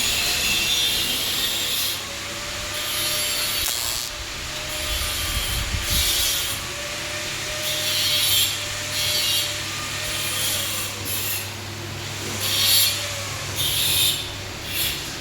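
Electric arc welding: the arc crackling and hissing in short, irregular bursts, with a steady low hum underneath.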